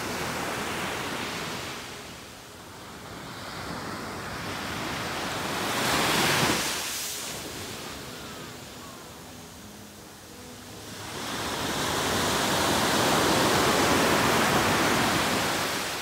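Surf breaking on a beach: waves crash and wash up the shore in swells, with a short, sharp crash about six seconds in and a longer surge from about eleven seconds.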